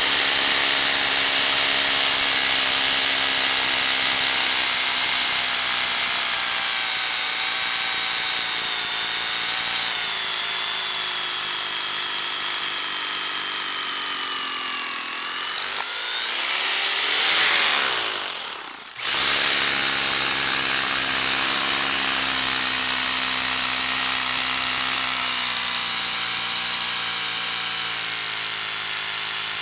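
DeWalt hammer drill hammering a long masonry bit down into rock, its motor whining steadily and sagging slowly in pitch under load. About 16 s in the motor speeds up sharply, then winds down and stops. It starts again about three seconds later and runs on.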